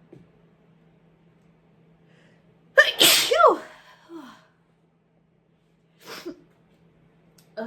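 One loud sneeze about three seconds in, from a person who is sick. The voice in it falls sharply in pitch. Two short, fainter sounds follow later.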